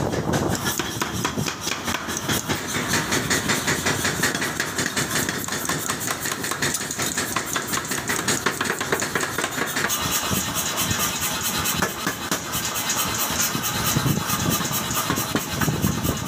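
A motor running steadily, with a fast, even rattling pulse.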